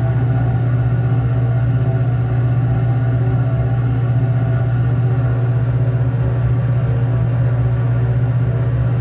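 Steady low machine hum, such as a lab ventilation fan, with a stack of steady higher tones above it and no change throughout. The fizzing of the pennies in the acid is not heard apart from it.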